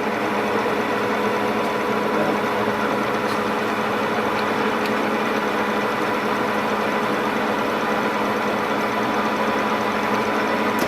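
Deckel FP2 universal milling machine running under power, a steady gear-drive hum with a held whine, while the vertical head is driven in and out by the power feed.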